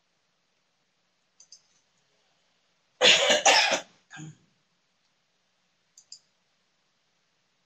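A person coughing, two loud coughs about three seconds in followed by a softer cough or throat clear. Faint double clicks of a computer mouse come before and after.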